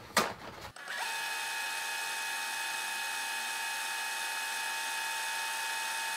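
Fast-forward sound effect laid over sped-up footage: a steady mechanical whir with hiss and a held tone. It starts about a second in and holds perfectly even.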